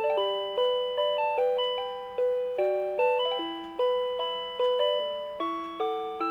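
Rhythm Clock Melody Club melody alarm clock playing a J-pop tune from its interchangeable song cassette in electronic chime tones. Chords of bell-like notes are struck sharply and fade, about two a second.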